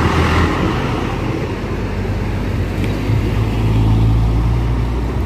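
Large tour bus passing close by, its engine running with a steady low rumble that grows stronger a few seconds in, over road traffic noise.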